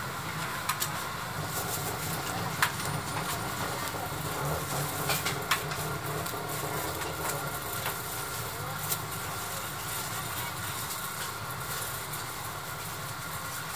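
Busy street-food stall ambience: a steady background hum with a few sharp clinks of metal utensils against steel pots and bowls, and faint background chatter.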